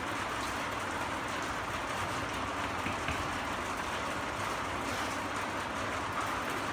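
A steady, even hiss of background noise, with no distinct sounds standing out.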